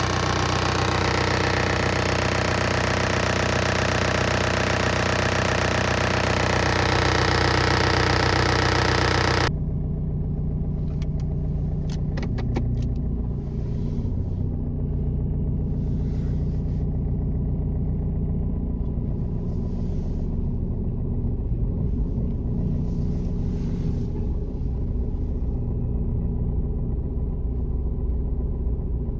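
Four-cylinder diesel engine of a MINI Clubman (F54) running steadily. About nine and a half seconds in, the sound changes abruptly from a dense, loud, full-range noise to a quieter, lower running sound, with a few quick clicks shortly after.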